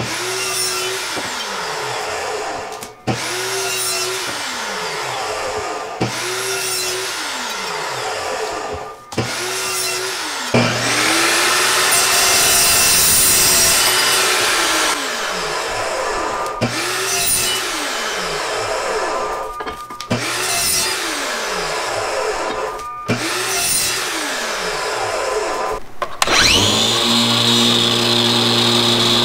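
DeWalt DW872 14-inch dry-cut metal chop saw cutting iron balusters to length, one after another: each time the motor spins up, the blade cuts through the bar, and the pitch falls as it winds down, about eight cuts with one longer run in the middle. Near the end a different steady machine whine starts, from the angle grinder that rounds over the cut ends.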